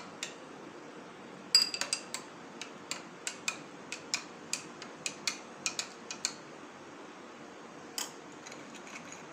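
A metal spoon stirring drinks in small glass tumblers and clinking against the glass. There is a quick, irregular run of light clinks from about a second and a half in until about six seconds, then one more clink a little before the end.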